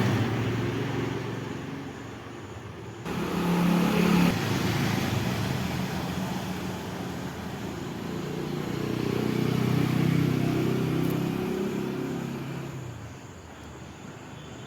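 A motor vehicle engine running steadily, growing louder and fading away more than once.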